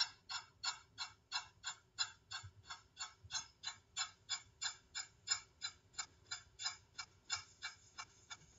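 Steady, even ticking, about three clicks a second, like a clock.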